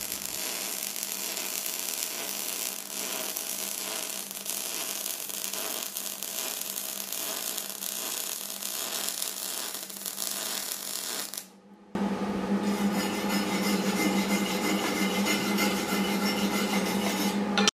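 MIG welding arc running steadily while a bead is laid in a lowercase-e weave, with a steady hum underneath. It stops briefly about twelve seconds in, then starts again louder.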